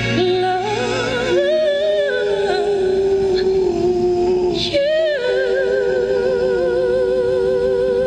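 A man singing a slow, heartfelt song into a handheld microphone, moving between notes and then holding one long note with a wide vibrato from about five seconds in.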